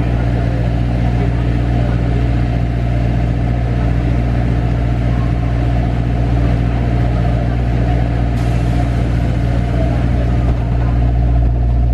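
Steady low hum of an idling engine, unchanging throughout and rising a little in level near the end.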